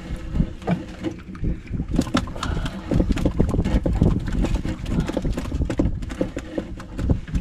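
Irregular knocks and splashes of water slapping against a small fishing boat's hull, over a steady low rumble of wind on the microphone.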